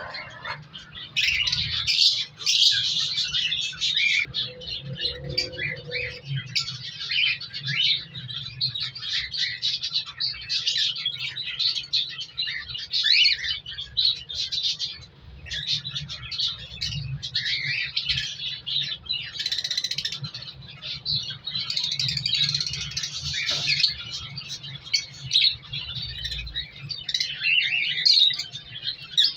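Cockatiels chirping and calling without a break, many short overlapping calls at once.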